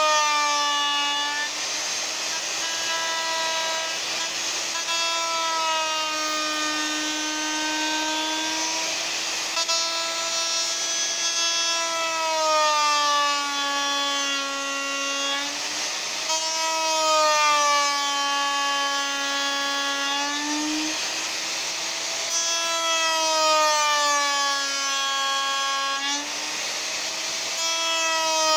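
Electric router with a bearing-guided flush trim cutter running and cutting tulipwood (yellow poplar): a steady high motor whine over the rasp of the cut, its pitch sagging several times as the cutter bites into the wood and recovering as it eases off.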